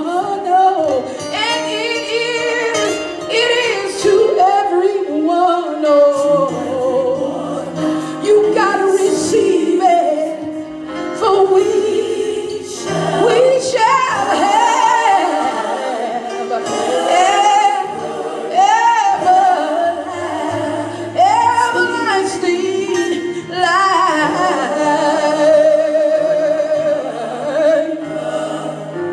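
A woman singing a gospel song into a microphone, with long held, sliding notes and vibrato, over low sustained accompaniment notes.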